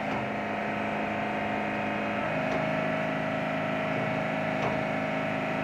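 Steady drone of shipboard machinery running, with several steady tones held throughout and a couple of faint ticks.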